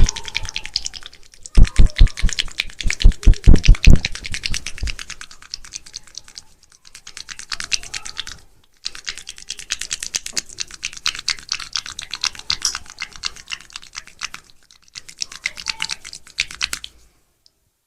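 Barber's hands working on a client during a massage: a stream of rapid, dry crackling clicks, with a run of heavy slaps from about one and a half to four seconds in. The clicking pauses a few times and stops shortly before the end.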